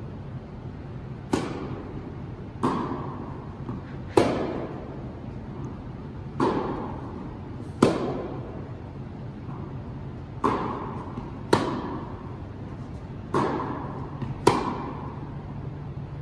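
Tennis ball struck back and forth by rackets in a rally, about nine sharp hits one to two seconds apart, each echoing through an indoor tennis hall, over a steady low hum.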